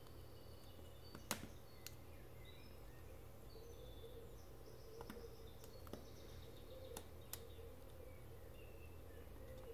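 Craft-knife blade cutting through the small tabs that hold laser-cut card parts in their sheet: a few faint clicks, the loudest about a second in, over a low steady hum.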